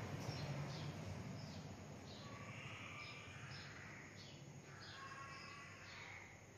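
Faint bird chirping: short high chirps repeating about twice a second, with a low rumble fading out in the first second or two.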